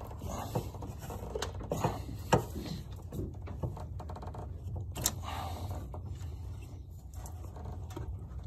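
Hands twisting and pulling rubber fuel hoses off an old inline fuel filter: rubbing and scraping with scattered sharp clicks, the loudest a little over two seconds in.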